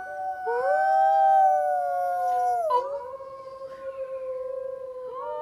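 Long drawn-out howling: two overlapping howls at different pitches that swell and fall off about three seconds in, then a single steady howl, with another joining near the end.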